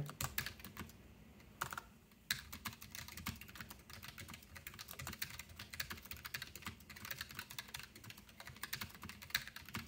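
Typing on a mechanical keyboard: a few keystrokes, a short pause, then steady, rapid typing from about two seconds in.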